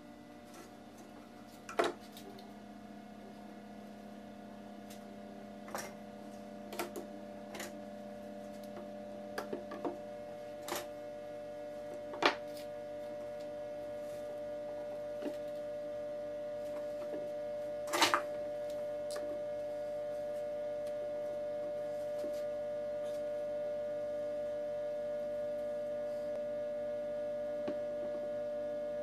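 Scattered sharp clicks and taps of handling work on a wooden board, with red spring clamps going onto its edge, over a steady drone of several tones that slowly grows louder.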